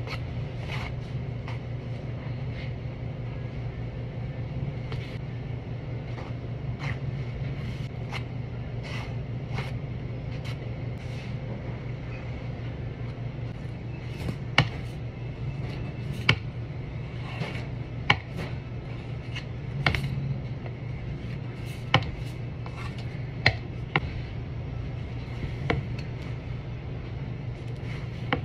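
Metal icing spatula and scraper scraping whipped cream on a cake and tapping against the cake board, with scattered sharp clicks that come more often and louder in the second half. Under it runs a steady low hum.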